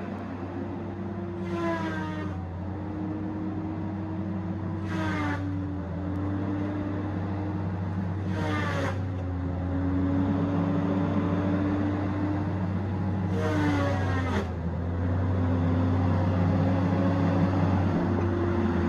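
Tigercat 870C feller buncher's diesel engine running under load. Its note steps lower with each of four short, high-pitched hissing bursts, then picks back up near the end.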